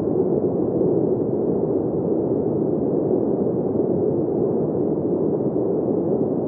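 Steady wind sound: an even, dull rushing noise with no high hiss and no gusts.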